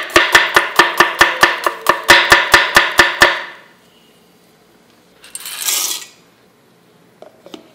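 Chef's knife slicing shallots on a wooden chopping board: quick, even strokes about six a second that stop a little over three seconds in. After a pause comes a brief rustle, then a couple of light knocks near the end.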